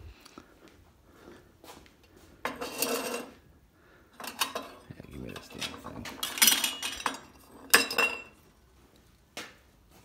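Glass jars and metal tools being handled and set down on a workbench, clinking and clattering in several short bursts with sharp clicks between them.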